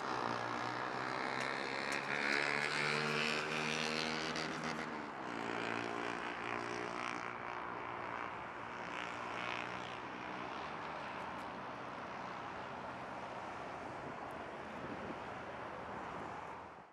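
A motor running with a steady hum of several tones, which drops in pitch about five seconds in and holds there before fading out near the end.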